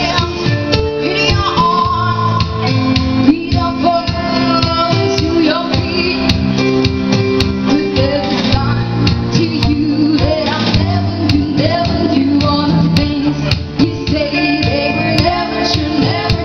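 Live band music: female singers performing a pop ballad into microphones over a band with guitar and bass.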